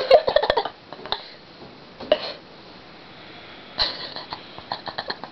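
Short breathy sniffs from a person close to the microphone, in three brief clusters (at the start, around two seconds in, and near the end), mixed with sharp clicks.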